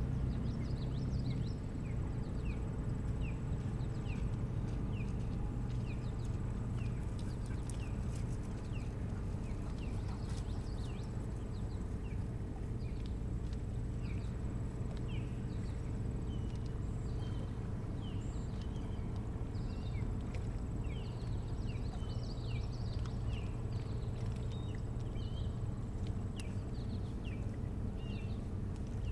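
Birds chirping: a long series of short, sharp, downslurred high chirps, about one or two a second. Under them runs a steady low hum.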